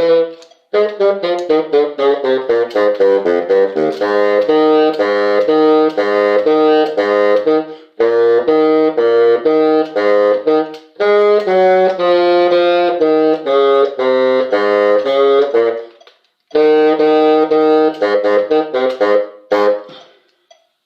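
Wind instrument music: a melody played in short separate notes, breaking off briefly about half a second in, near the middle and a few seconds later, and stopping shortly before the end.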